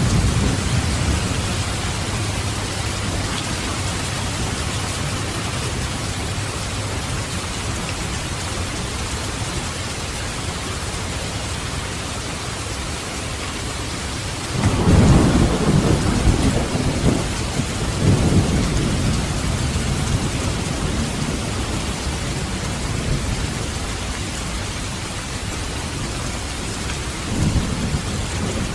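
Steady rain with rolling thunder: a loud low rumble breaks in about halfway through and swells again a few seconds later, and a shorter rumble comes near the end.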